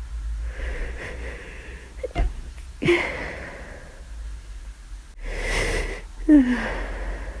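A person with the flu sneezing twice, each sneeze preceded by a breathy gasping intake. The first comes about three seconds in after a small catch, and the second, about six seconds in, is the louder.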